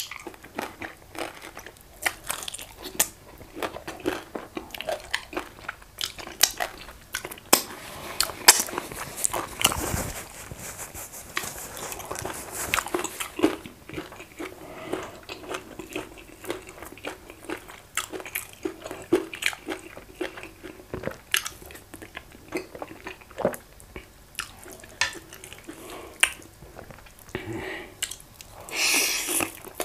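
Close-up eating sounds: goat meat and efo riro vegetable soup chewed with wet smacking and clicking mouth noises. Near the end comes a louder wet slurp as soup and greens are sucked off the fingers.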